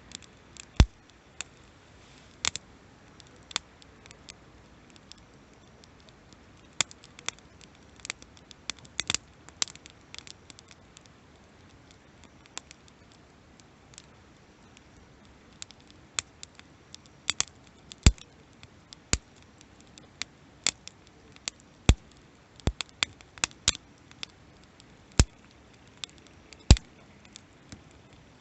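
Wood campfire crackling: irregular sharp pops and snaps, some loud, over a faint steady hiss of burning.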